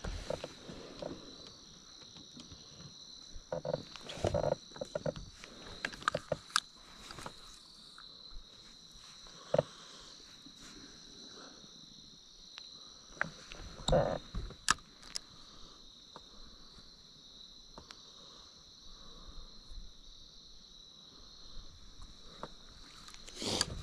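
Steady chorus of crickets chirping, with scattered short knocks and clicks, the loudest about ten and fourteen seconds in.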